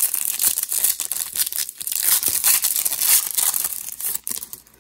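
The foil wrapper of a Panini Prizm basketball hobby pack being torn open and crinkled by hand: a dense, crackling rustle of foil that dies away near the end.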